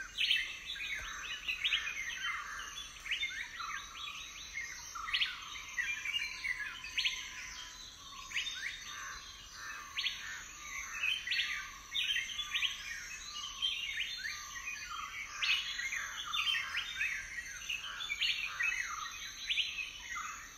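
Many small birds chirping, a dense chorus of quick short calls that goes on steadily throughout, with a faint steady high hum beneath.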